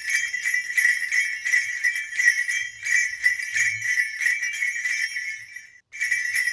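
Steady metallic jingling of small bells, a rapid bright tinkling that stops briefly about six seconds in and then starts again.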